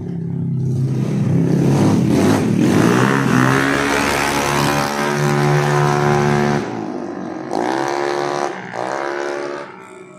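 Bored-out 170cc Honda Click scooter's single-cylinder engine with an aftermarket racing exhaust, accelerating hard away: the pitch climbs through the first few seconds and holds high. It drops off suddenly past the middle, followed by two shorter rising revs as it gets fainter.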